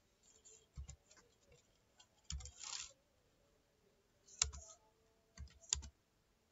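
Computer keyboard keystrokes: a handful of separate sharp clicks a second or so apart, as a letter is deleted and typed again.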